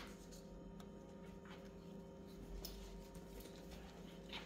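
Faint handling of a leather crossbody bag as it is lifted off the table and taken away: a few soft clicks and rustles, the loudest near the end, over a steady low electrical hum.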